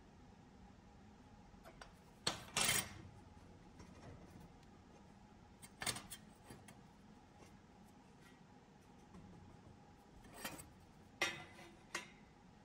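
Several brief metal clinks and scrapes from steel pieces or tools being handled, over a faint steady hum: a pair about two and a half seconds in, one near six seconds, and a cluster near the end, one of which rings briefly.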